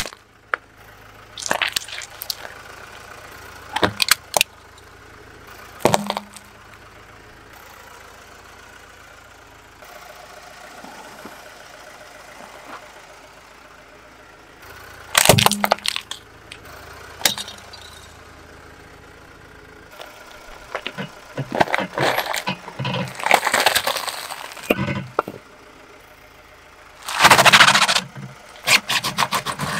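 Objects cracking and crunching as a car tyre rolls over them: separate sharp cracks every few seconds, then longer stretches of crackling. The loudest is a long crunch near the end as a head of cabbage stuck with toothpicks is flattened under the tyre.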